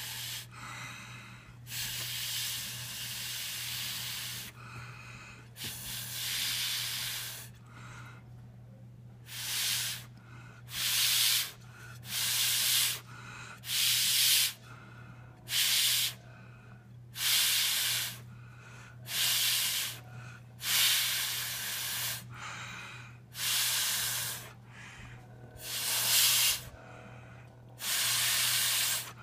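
Breath blown through a plastic drinking straw to spin up a top made of neodymium magnet spheres. A few long breathy blasts come first, then short puffs about every one and a half seconds, over a steady low hum.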